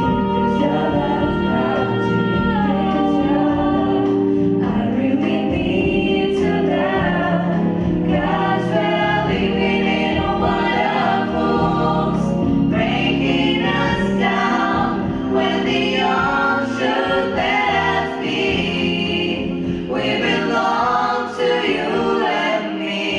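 Group vocal singing with musical accompaniment, a slow pop song performed by several voices together.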